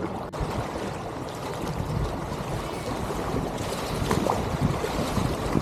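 Fast river current rushing over a shallow riffle, with irregular splashing close by, getting a little louder toward the end.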